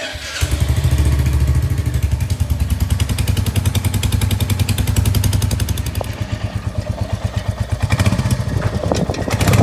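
Royal Enfield Hunter 350's single-cylinder 349 cc engine running, with a dense pulsing exhaust note under throttle, then easing back to a slower, more separate thump about six seconds in.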